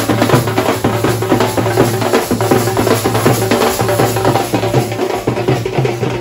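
A dhol and steel-shelled drums beaten with sticks in a fast, dense rhythm of sharp strikes.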